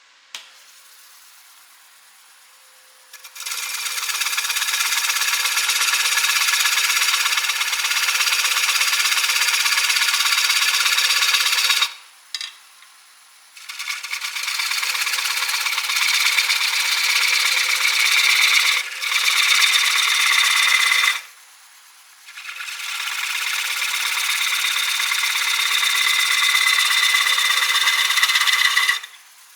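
Bowl gouge cutting into a spinning green walnut bowl on a wood lathe while hollowing it: three long cuts of steady shaving and scraping noise with short pauses between them, over the faint hum of the lathe.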